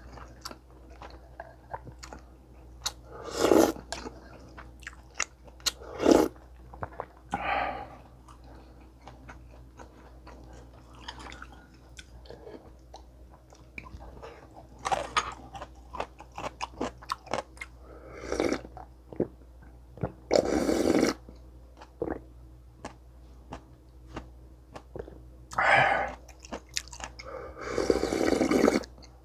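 Close-miked eating sounds of a meal of sundae gukbap with kimchi and kkakdugi (cubed radish kimchi): chewing and biting with wet mouth clicks and some crunching. Louder bursts about a second long come several times.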